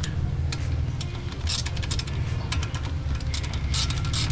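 Ratchet wrench clicking in three short rapid bursts as a brake caliper's 14 mm nut is loosened, over background music with a heavy bass beat.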